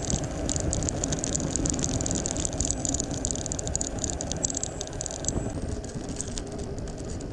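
A bicycle rolling along a paved road, with wind and tyre noise and the bike rattling over the surface, and dense high ticking that thins out after about five seconds.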